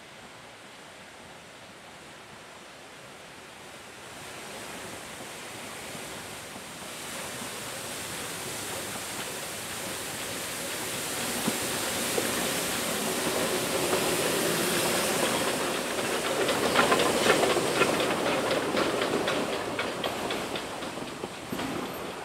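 Narrow-gauge steam train hauled by two locomotives, approaching and passing close: steam hiss and rumble grow louder from about four seconds in, with a quick rhythmic clatter as the locomotives go by about two-thirds of the way through, then the carriages rolling past. A river's steady rushing is heard under it at the start.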